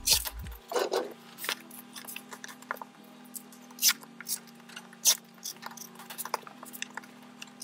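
Soft background music with low notes changing about once a second, over sharp clicks and a brief rustle as cotton fabric and a clear acrylic ruler are handled on a cutting mat.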